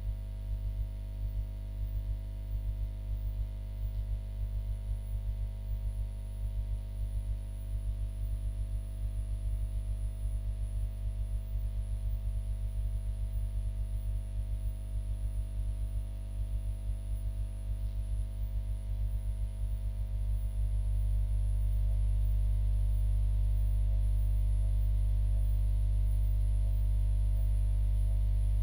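Steady low electrical hum with a buzz of fainter tones above it. It flutters slightly at first, then about 20 seconds in becomes smooth and a little louder.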